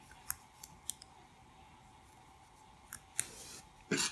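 Small sharp clicks of a plastic locking stitch marker being unclipped and clipped into a crochet stitch: three quick clicks in the first second, two more about three seconds in with a brief rustle of yarn, and a louder tap just before the end.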